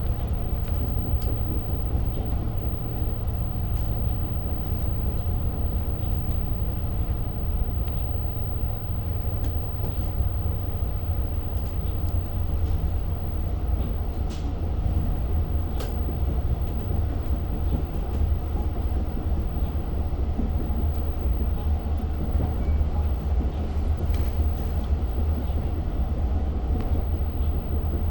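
Long Island Rail Road diesel-hauled passenger train running between stations, heard from inside the coach: a steady low rumble with a few faint clicks.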